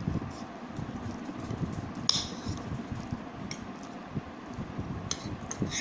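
Metal spoons clinking and scraping against bowls as two children eat vermicelli, with one sharp ringing clink about two seconds in and a few lighter clinks near the end.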